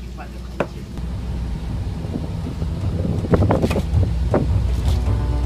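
Wind buffeting the microphone as a steady low rumble that grows stronger about a second in, with a short run of cleaver chops cutting cabbage on a wooden board a little past halfway.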